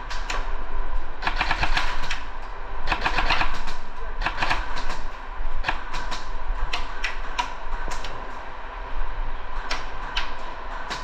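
Airsoft guns firing: short bursts of rapid clicking shots in the first half, then scattered single shots.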